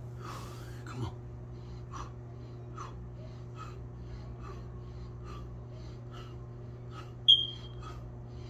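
A man's short breaths in time with push-up reps, about one every 0.8 seconds, over a steady low electrical hum. A brief high squeak about seven seconds in is the loudest sound.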